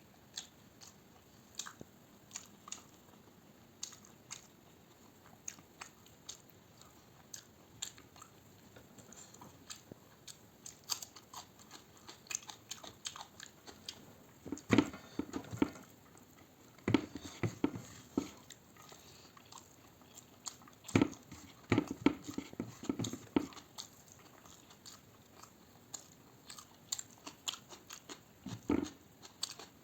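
A person chewing and biting food close to the microphone, with frequent small mouth clicks and smacks. Several louder bursts of eating noise come about halfway through and again near the end.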